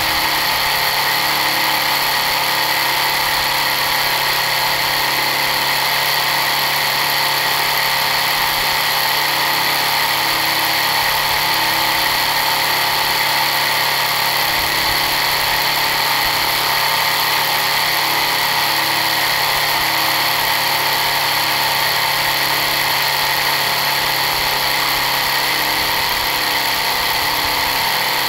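Simulated Detroit Diesel 3-71 two-stroke diesel engine sound from a Lego model engine, running steadily at an even speed with no revving.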